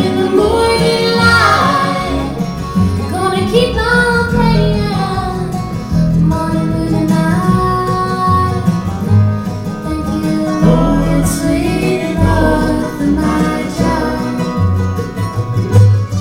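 Live bluegrass band playing: five-string banjo, acoustic guitar, mandolin, fiddle and upright bass, with a sliding melody line over a steady bass pulse.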